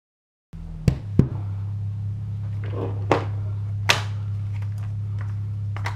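Scattered knocks and clicks of pistol-cleaning tools and a plastic organizer box being handled on a table, over a steady low hum that starts about half a second in.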